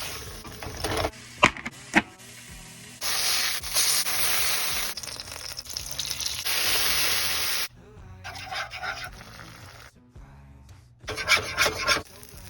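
Kitchen cooking sounds in quick cuts under light background music: two sharp knocks of utensils, then several seconds of steady hissing that cuts off suddenly, and shorter bursts of rubbing and scraping near the end.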